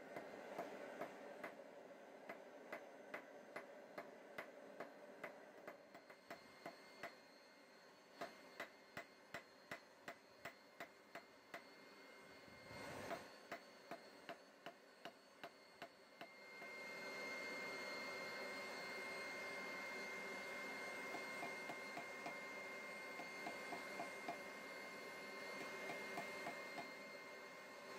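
Hand hammer striking hot steel on a chain-wrapped anvil in a steady rhythm, about two to three blows a second, forging a small leaf. About halfway through a brief rush of noise passes, and from just after it a steady hum with a thin high tone runs under the continuing strikes.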